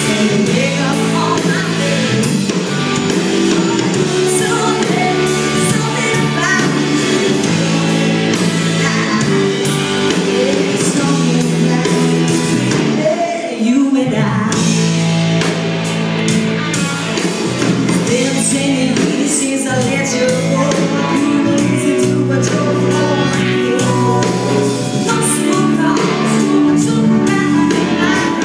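Live rock band playing a song, with a female lead vocalist singing over drums, keyboards, electric guitar and bass guitar. About halfway through, the low end drops out for a moment before the full band comes back in.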